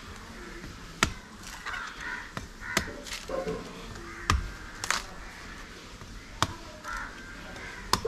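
Coconut being chopped with a blade: about seven sharp strikes at uneven intervals of roughly a second, with short bird calls between them.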